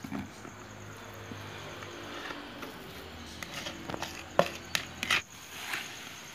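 Mashed potato being scraped and tipped out of a plastic bowl into a mixing bowl of grated coconut and batter: soft scraping and small knocks, then three sharp knocks a little over four seconds in, the first the loudest.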